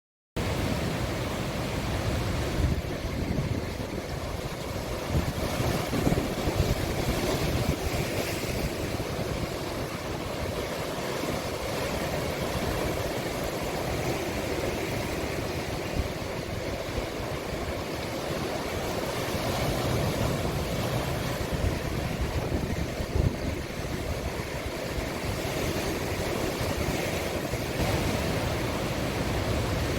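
Sea waves breaking and washing in a cove: a continuous rushing surf with rises and falls, starting abruptly out of silence just after the start, with wind rumbling on the microphone.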